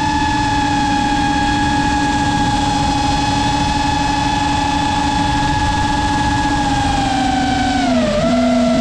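GEPRC Mark 5 FPV quadcopter's brushless motors and propellers whining at a steady pitch over a rushing hiss. Near the end the pitch drops in a couple of steps as the throttle is eased off.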